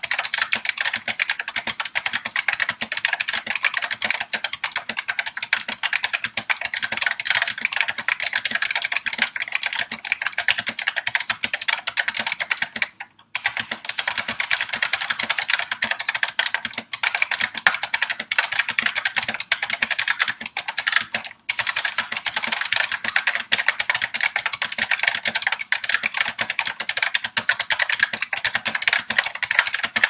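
Fast continuous typing on a Unicomp Ultra Classic buckling-spring keyboard: a dense stream of key clicks, broken by two brief pauses, about 13 seconds in and about 21 seconds in.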